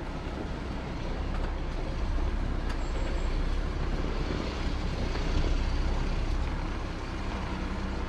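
Jeep Gladiator pickup on the move: a steady rumble of engine and tyres, a little louder after about two seconds.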